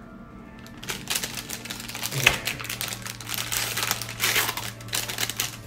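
Paper gift bag being opened and handled, crinkling and rustling from about a second in, with one sharper crackle a little after two seconds.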